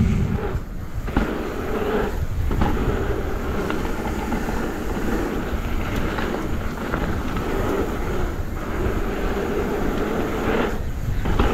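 Downhill mountain bike on knobby gravity tyres being ridden down a bikepark trail: a continuous rumbling rush of tyre, trail and wind noise, with a few short quieter moments.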